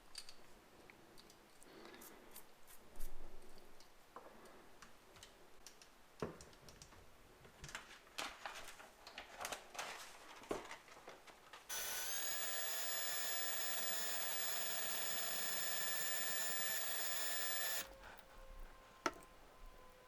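Small power drill spinning up about halfway through and running with a steady whine for about six seconds while it drills out the rivet of a die-cast toy car's chassis, then stopping suddenly. Before it come scattered clicks and scrapes as the car and drill are handled.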